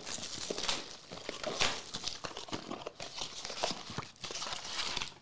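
A cardboard blaster box of trading cards being torn open by hand and its foil-wrapped card packs pulled out, making irregular crinkling and tearing with scattered small clicks.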